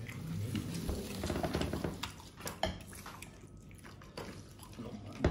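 Dishes and serving spoons clinking at a meal, a few sharp clicks among faint background chatter.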